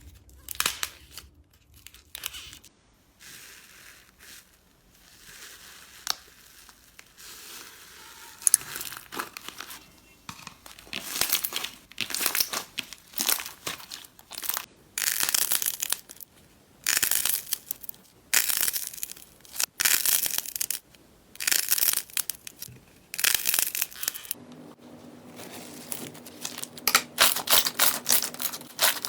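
Slime being squeezed and pressed by hand, crackling and crinkling in repeated squishes about once a second. Near the end the crackles come quicker and denser.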